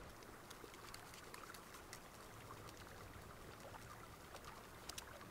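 Near silence: faint outdoor ambience with a few soft ticks.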